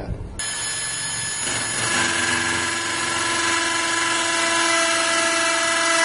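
Bosch 18-volt cordless drill with a 3/32-inch bit running steadily while pre-drilling a handle pilot hole through the storm door via the template. It is a motor whine that climbs a little in pitch about two seconds in, then holds.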